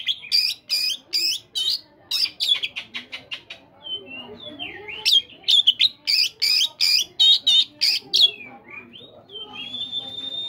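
Oriental magpie-robin singing: a fast run of sharp chirps and whistled notes, with a quick trill a few seconds in, some lower swooping notes, and a long held whistle near the end.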